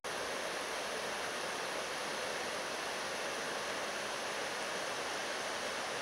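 Steady rush of a rocky forest stream tumbling over stones in rapids.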